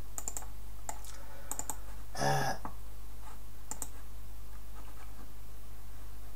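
Computer mouse clicks: a handful of sharp, short ticks spread over the first four seconds, over a steady low hum. A brief wordless voice sound about two seconds in.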